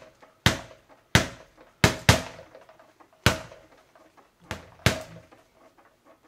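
Boxing gloves punching a leather speed ball mounted on a Kewlus PRO Spring cobra bag: seven sharp hits at an uneven pace, some in quick pairs, with the ball and spring rebounding between blows.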